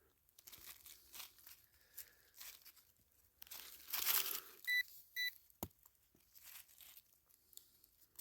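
Digging in soil around a buried metal target: intermittent scraping and crunching of dirt, loudest about four seconds in. Just after, a metal-detecting pinpointer gives two short high beeps, signalling metal in the hole, followed by a single sharp click.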